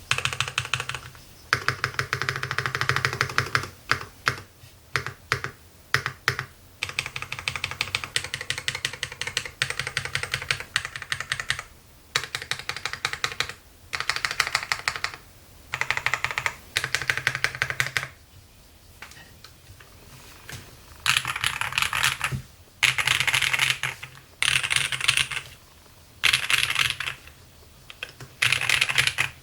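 Fast typing on a MODE 80 mechanical keyboard with lubed Polia Polar Panda tactile switches, an FR4 plate and Cherry-profile keycaps: dense runs of keystrokes in bursts of a second or two, with brief pauses between them. In the last third the bursts are shorter and more clearly spaced.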